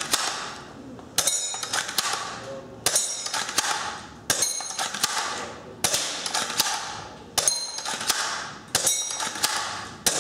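JG M70 spring-powered bolt-action airsoft sniper rifle being fired over and over: six sharp shots about a second and a half apart, each with a brief metallic ring, and the bolt clicking as it is worked between shots.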